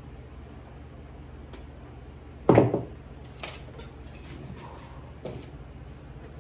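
Handling noise from working on a car wire harness: scattered clicks and knocks of wires and plastic connectors being moved on a work surface, with one louder clunk about two and a half seconds in, over a steady low hum.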